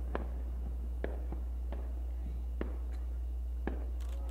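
Distant aerial fireworks going off: about six sharp, separate pops, then a quick cluster of crackling near the end, over a steady low hum.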